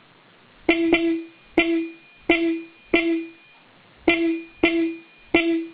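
Bosch City Horn low-note (335 Hz) car horn sounded in short toots, a quick double toot and then single toots, eight in all. Each toot opens with a sharp click.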